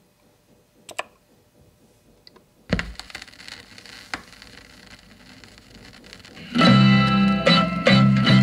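Vinyl 45 rpm single on a turntable: a thump about two and a half seconds in as the stylus meets the record, then surface crackle and clicks from the run-in groove. About six and a half seconds in, the record's music starts loudly with a plucked-string instrumental introduction.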